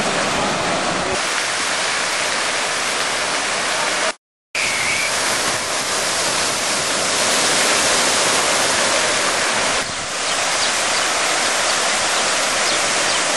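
Continuous rushing and splashing of falling water from water-park play features: a giant tipping bucket pouring out its load, and a mushroom-shaped fountain cascading into a shallow pool. The sound cuts out for a moment about four seconds in.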